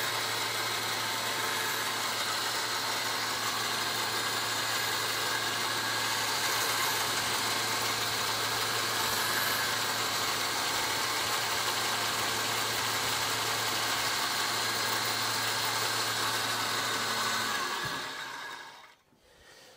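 1x30 belt grinder running steadily with a leather strop belt, finish-sharpening a small knife's edge. The motor is switched off about eighteen seconds in and winds down to quiet.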